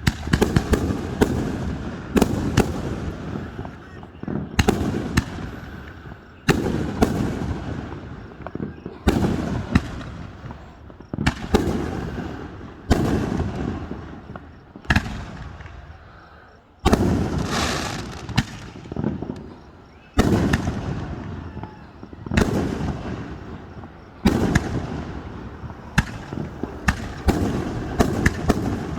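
Aerial fireworks shells bursting one after another, a sharp boom about every two seconds, each trailing off in an echoing rumble, with a quicker run of crackling bangs near the end.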